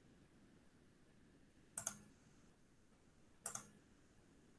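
Computer mouse clicking: two short double clicks, about a second and a half apart, in near silence.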